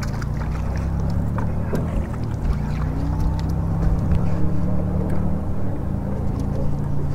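Boat motor running at low speed, a steady low hum whose pitch steps up and down a few times.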